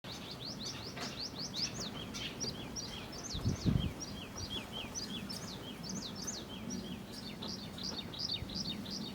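Small birds chirping in quick, busy succession, many short high notes sweeping downward, with a dull low thump about three and a half seconds in.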